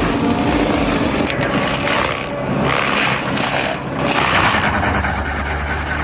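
Heavy machine running and grinding wood, with a noisy crushing sound over the engine. About four seconds in it changes to a steadier engine drone.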